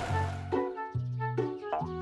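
Cartoon background music: a few short pitched notes starting one after another over a steady bass line.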